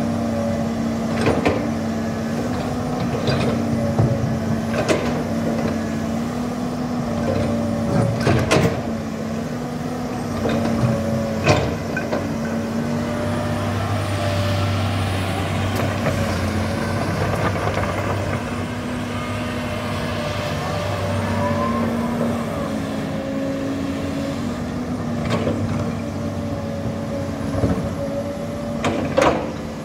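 Hydraulic excavator's diesel engine running as it levels fill soil, its note shifting up and down with the work, with scattered sharp knocks.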